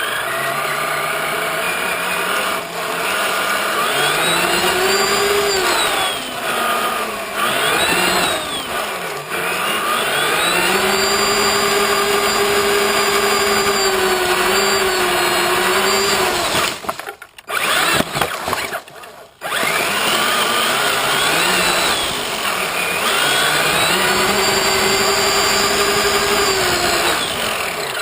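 Electric motor and gear drive of a Traxxas Summit RC truck whining, its pitch rising with throttle, holding, then falling again, several times over. The sound drops out briefly twice about two-thirds of the way through.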